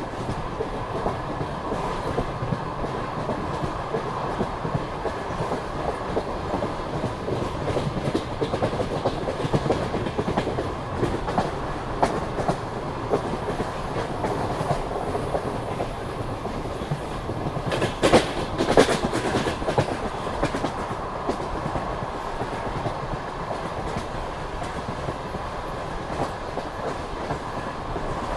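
Passenger train running along the track, its wheels clattering over the rails, with a short burst of louder knocks about eighteen seconds in.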